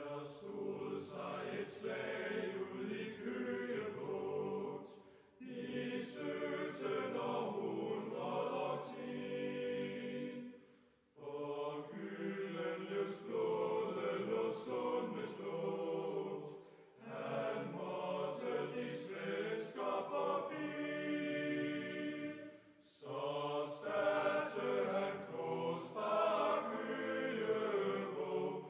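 Choir singing a slow, chant-like melody in long phrases, with a short break about every six seconds.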